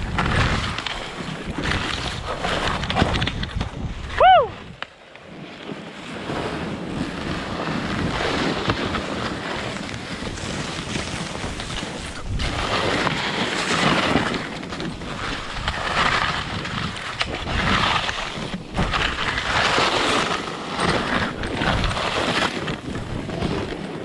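Skis hissing and scraping through soft snow in surges, with wind buffeting the microphone. About four seconds in, a brief high-pitched tone rises and falls; it is the loudest moment.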